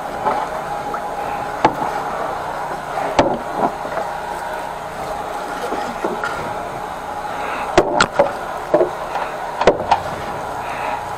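The 13-horsepower petrol engine of a high-pressure drain jetter runs steadily. Sharp knocks and clacks sound over it now and then, several in quick succession about eight seconds in.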